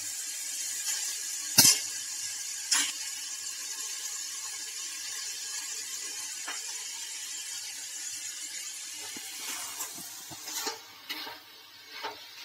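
Hot oil sizzling in a steel kadhai as damp washed poha (flattened rice) is tipped in onto fried potatoes and peanuts. Two sharp metal knocks come about one and a half and three seconds in. Near the end the sizzle dies down and a spatula scrapes and stirs the poha through.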